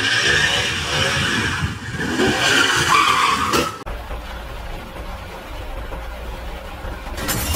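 Car tires screeching with the engine revving for about four seconds, cutting off abruptly, then a steady low road rumble from inside a moving car.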